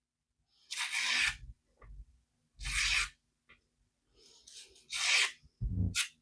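Freshly sharpened AEB-L steel fixed-blade knife push-cutting through paper: four short scratchy cuts about a second apart, the last with a dull thump. The edge goes through easily, the sign of a keen edge that still has bite.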